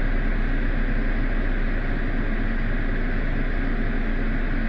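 Steady low rumble and hum of a running vehicle, unchanging throughout.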